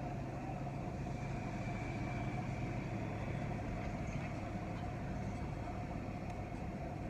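Car engine idling, a steady low hum heard from inside the cabin.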